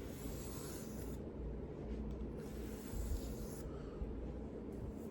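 Knife blade drawn across a 3,000-grit water stone during sharpening: two long scraping strokes, each about a second.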